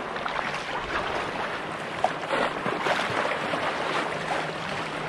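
Water splashing and lapping around a sea kayak's paddle and hull, with many small irregular splashes over a steady wash of water.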